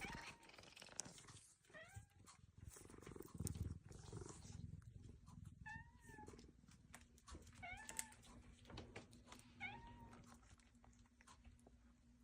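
Cat meowing plaintively: about five short, faint meows, each rising then falling in pitch, a couple of seconds apart.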